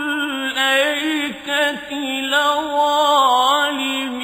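A man's voice reciting the Quran in the slow, melodic tajwid style, holding long notes and ornamenting them with wavering turns as he draws out the word "al-aykati".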